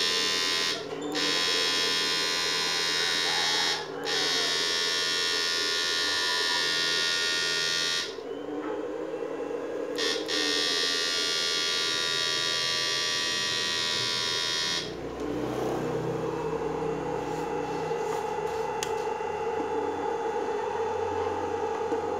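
SUSAN-1030SMP fish-stunner inverter buzzing with a high-pitched electrical whine while driving a 500-watt halogen test bulb. It cuts out briefly twice, then for about two seconds, and stops suddenly about 15 seconds in, leaving a lower hum.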